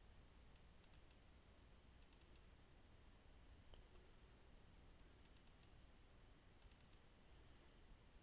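Near silence broken by faint computer mouse clicks, coming in small quick clusters like double-clicks every second or few.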